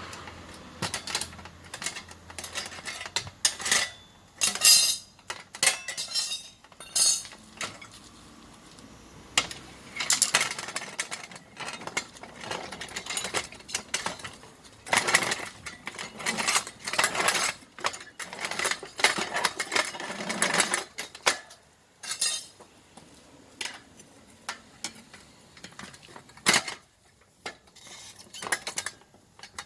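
Metal tools, such as tyre levers, clinking, tapping and scraping on a wheel rim during a tyre change: irregular clanks with a few longer scrapes, the densest between about ten and twenty seconds in.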